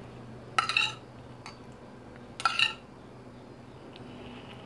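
A metal spoon clinking against a bowl twice, each a short ringing clink, the first about half a second in and the second about two and a half seconds in, as soy sauce is spooned out.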